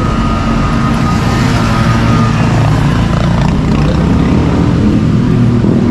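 A motor vehicle engine running steadily close by, with street traffic noise.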